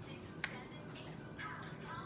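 A song with singing plays in the background, with one sharp click about half a second in.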